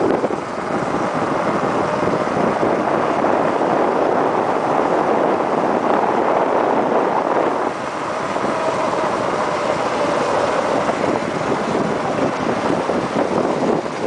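Wind rushing over the microphone of a moving vehicle, mixed with its engine running at a steady cruising speed. The noise eases briefly about eight seconds in.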